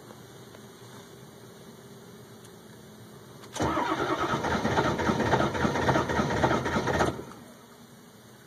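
Starter cranking a Ford 7.3 L Powerstroke V8 turbo-diesel in a steady, pulsing rhythm for about three and a half seconds, starting a few seconds in and then stopping without the engine catching. It is a hard cold start, which the owner thinks the glow plugs should have solved by now.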